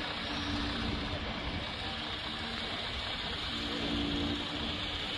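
Steady city street noise with a vehicle engine idling, its low hum fading in and out.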